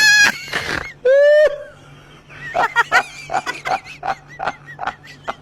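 Two short loud high-pitched vocal cries, one at the start and one about a second in, then a person laughing in quick rapid bursts for a couple of seconds.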